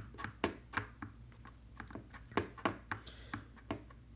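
Irregular small clicks and taps, a few a second, of hands and small repair tools handling phone parts on a work surface, over a faint steady hum.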